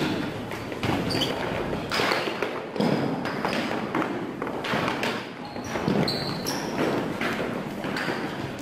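Indistinct voices and shouts of people in a hall, coming in uneven surges, with occasional knocks and thumps of rope and a metal hose nozzle handled on a wooden floor.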